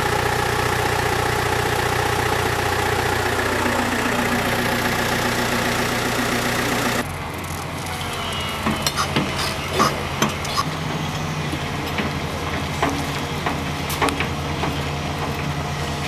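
An engine running steadily under loud rushing noise. About seven seconds in this cuts to the lower, steadier idle of a tracked excavator's engine, with scattered sharp clicks and knocks over it.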